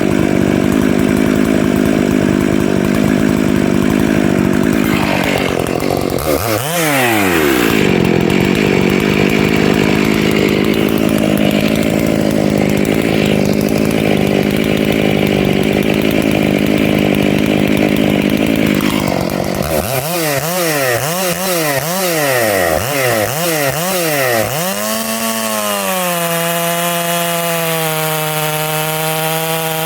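Stihl 461 two-stroke chainsaw with a Panther full-skip chain at full throttle, cutting through a log, with a brief change in engine note about six seconds in. Near the end the throttle is blipped up and down for a few seconds, then the saw drops to a steady idle.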